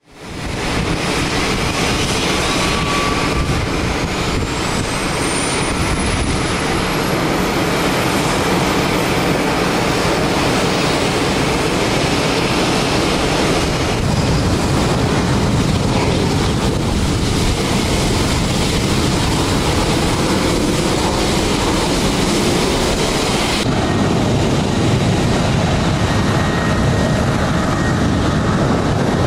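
Airbus A350-900's Rolls-Royce Trent XWB jet engines running at taxi power: a steady jet roar, with a thin high whine rising in pitch over the first ten seconds.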